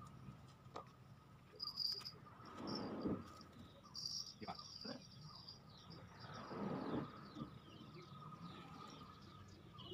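Quiet riverside ambience with a steady, high insect drone throughout and a few short, high chirps. Two soft, indistinct swells of sound come about three and seven seconds in.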